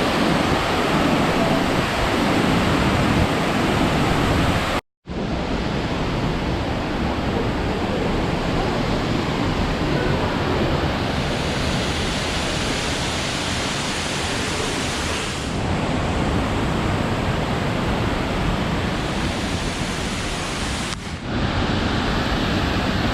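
Fukuroda Falls: the steady rushing roar of a large waterfall. It cuts out for a moment about five seconds in and changes tone slightly near the end.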